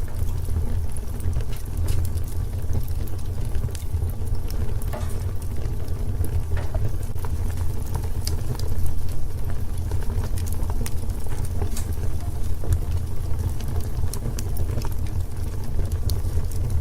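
Bonfire crackling: scattered sharp pops and snaps of burning wood over a steady low rumble of the flames.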